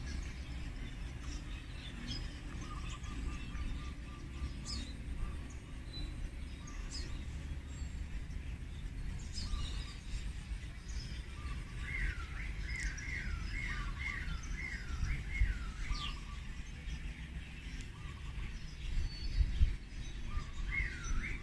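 Birds chirping and calling, with a short trill early on and a run of about seven quick down-slurred whistles about halfway through, over a steady low rumble.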